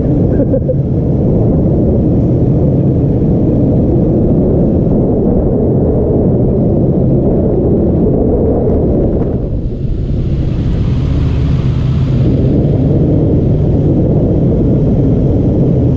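Sport motorcycle riding along at low speed: steady engine rumble mixed with heavy wind noise on the rider-mounted microphone, with a brief hiss about ten seconds in.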